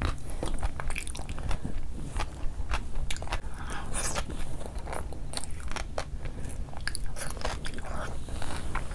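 Close-up eating sounds of a person chewing a mouthful of rice and curry eaten by hand: wet chewing, lip smacks and many short mouth clicks throughout.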